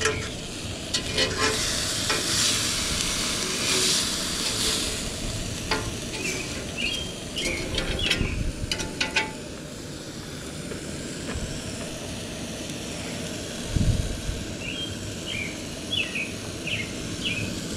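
Burger patty sizzling steadily on a flat-top griddle over a Coleman two-burner propane stove, with a few sharp clicks of a metal spatula against the griddle partway through.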